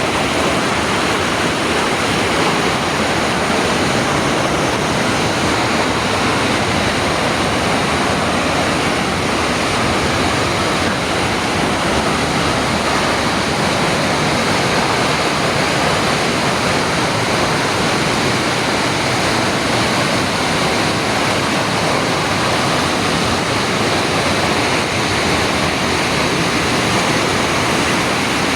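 Waterfall pouring, a loud, steady, unbroken rush of falling water close by.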